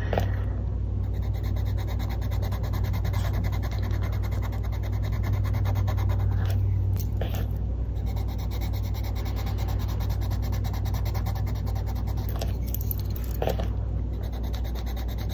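Caran d'Ache Luminance colored pencil scribbling rapidly back and forth on paper, pressed down hard to lay down a solid swatch. A steady low hum sits under it.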